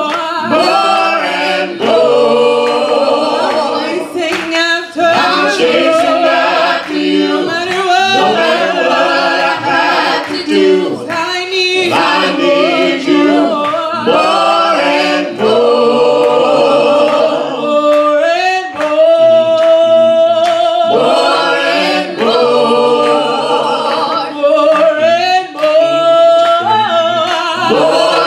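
Gospel praise team of men and women singing a cappella in harmony, several voices together with no instruments, holding a long note about two-thirds of the way through.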